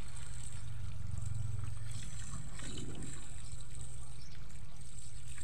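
Water pouring from the open end of a plastic pipe and splashing over hands and the wet concrete as something is washed in the stream, with a brief louder splash near the middle. A steady low rumble and a steady high hiss run underneath.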